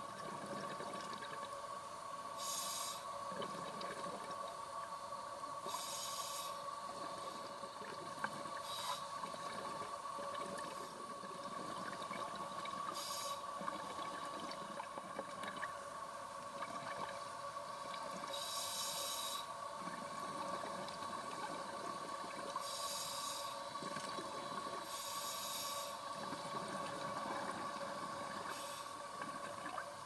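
Scuba diver breathing through a regulator underwater: a short hiss every few seconds, with bubbling between, over a steady hum.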